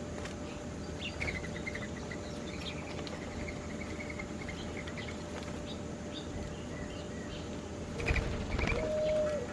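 Small birds chirping faintly over a steady background hiss. Near the end comes a brief low rumble, then a short held cooing note.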